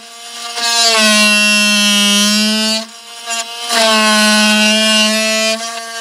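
Makita XMT03Z 18-volt cordless oscillating multi-tool running with a steady, high buzz as its blade plunge-cuts a notch in wooden deck planks. It runs in two spells of about two seconds each, with a short dip between them.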